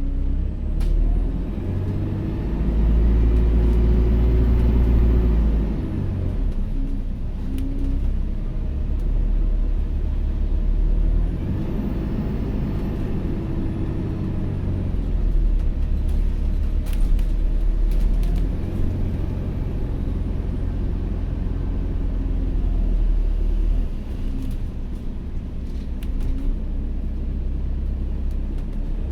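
Alexander Dennis Enviro400H City hybrid double-decker bus on the move, heard from on board: a low drivetrain rumble that swells and eases with the driving. Above it, a high whine rises and falls twice, the vacuum-like note bus fans call a 'hoover'.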